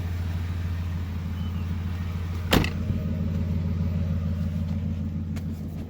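A Ford Expedition EL's door shutting with a single sharp slam about two and a half seconds in, over the steady low hum of its engine idling.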